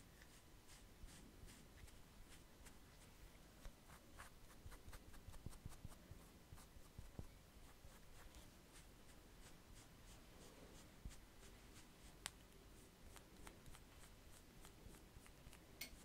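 Faint, dry scratching of a hand-held scraping tool drawn over the bare skin of a man's neck and shoulders, close to the microphone, in many short strokes. The strokes come thickest about four to six seconds in, and there is a single sharp tick about twelve seconds in.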